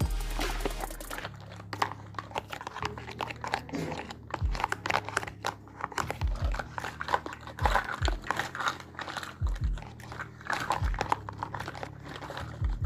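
Handling sounds from unboxing a miniature toy kitchen set: crinkling packaging with many small clicks and taps of little plastic and metal pieces, and occasional soft low thuds.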